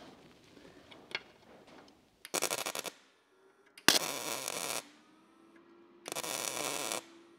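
MIG welder arc running in three short bursts of under a second each, as an old bolt is welded onto a rusted, broken-off door-hinge stud so the heat runs down the stud and frees it.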